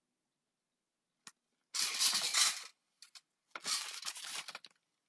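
Two strokes of a hand balloon pump, each a breathy whoosh of air about a second long, inflating a red latex twisting balloon. A small click comes just before them.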